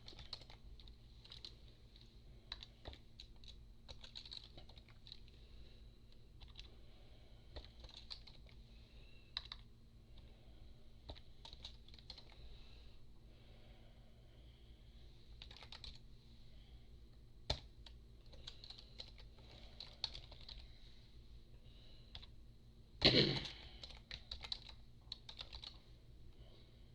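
Someone typing on a computer keyboard in short, irregular runs of clicks, with a louder clatter about 23 seconds in. A faint steady electrical hum lies underneath.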